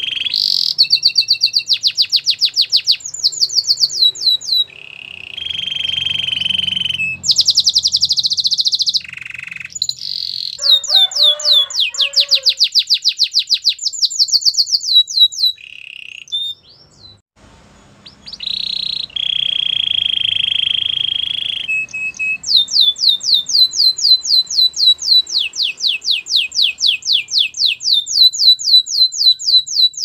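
Domestic canary singing: rapid trills of repeated falling whistled notes alternate with held buzzy notes. A short pause comes about halfway through, then a long fast trill runs near the end.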